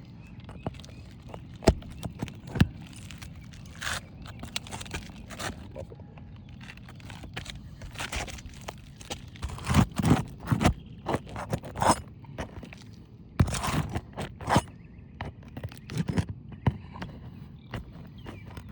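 Nails being pried out of brittle, delaminated asphalt roof shingles with a roof snake shingle-removal tool: irregular scraping and crunching with sharp clicks as the shingles tear around the nail holes. The loudest bursts come about ten seconds in and again a few seconds later.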